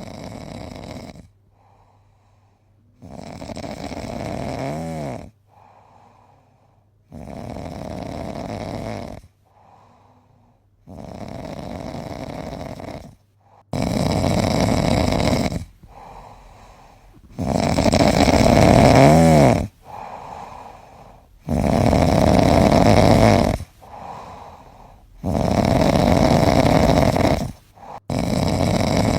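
A sleeping cat snoring in a steady rhythm: a loud snore about two seconds long roughly every four seconds, with a fainter breath between each. The snores grow louder about halfway through.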